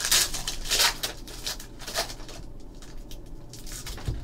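Foil trading-card pack crinkling and tearing as it is opened by hand, loudest in the first second with another crackle about two seconds in, then a softer rustle as the cards are slid out.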